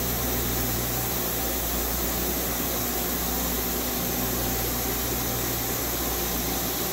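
Steady hum and hiss of a Nakamura-Tome WT-300 CNC turning/milling center running while its lower turret is jogged along the X axis.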